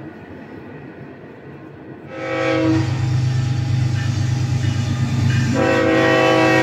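Diesel locomotive horn of a Kansas City Southern GE ES44AC blowing a multi-note chord over the low hum of the engine, starting about two seconds in, easing off, then swelling again past the halfway point. Before the horn, only faint steady background noise.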